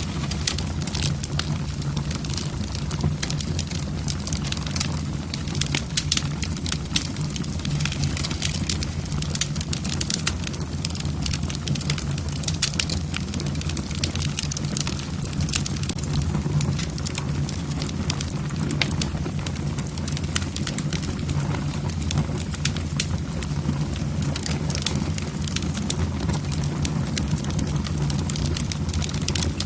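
Wood fire burning in a fireplace: logs crackling with frequent, irregular sharp pops over a steady low rush of flame.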